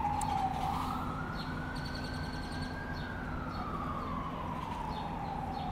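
Emergency vehicle siren in a slow wail: the pitch falls, rises over about two seconds, then falls again, with a steady low hum beneath.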